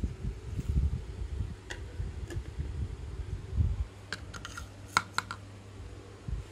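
Plastic tumbler, lid and figure topper being handled: dull knocks and thumps, then a quick run of sharp plastic clicks about four to five seconds in.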